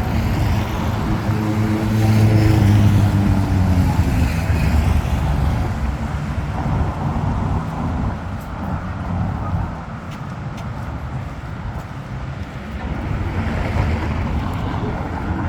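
City street traffic. A motor vehicle passes close by, its engine hum loudest about two seconds in and dropping a little in pitch as it goes away. It gives way to steady traffic noise, and another vehicle swells up near the end.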